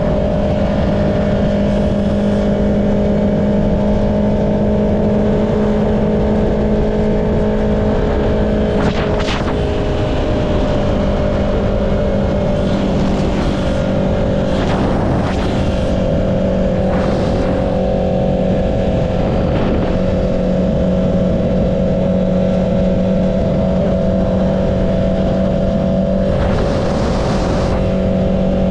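Honda CB650R inline-four engine with an Akrapovic exhaust running at a steady cruising speed, its note holding nearly constant with a slight dip about a third of the way in. A few brief rushes of noise pass over it.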